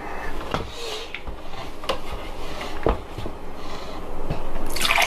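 Scattered light taps and clicks from a vinyl toy figure and its packaging being handled, with a short hiss near the end.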